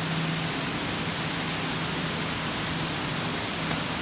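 Steady, even rushing noise with no distinct events, and a faint low hum that drops away about half a second in.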